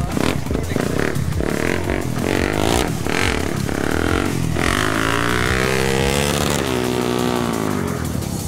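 Sport quad bike (ATV) engine being blipped in short bursts of throttle while it is ridden on its rear wheels. Partway through, the revs sag and then climb back up over a couple of seconds.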